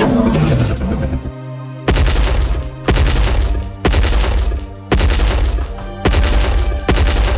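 Background music with a heavy booming drum beat, about one hit a second over sustained notes.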